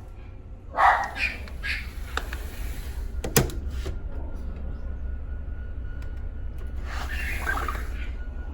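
Animal cries, a short run of calls about a second in and again near the end, with a single sharp click between them over a steady low hum.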